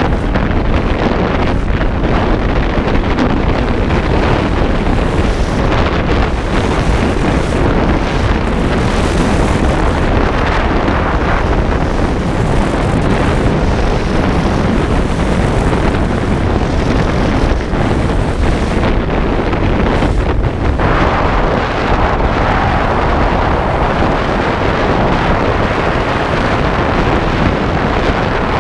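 Steady, loud wind rushing over the microphone of a camera moving at skiing speed, mixed with the scrape of skis carving on groomed snow.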